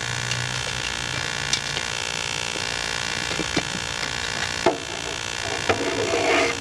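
Steady hum and hiss with a few scattered clicks and a short rubbing rustle near the end, as a bicycle tire is worked back onto its rim by hand.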